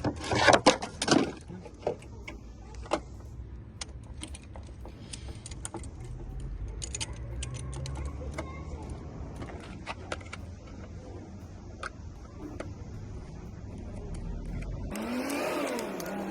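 Sharp clicks and light rattling of hard parts being handled, loudest in the first second, over a steady low rumble. Near the end a different sound with gliding tones suddenly takes over.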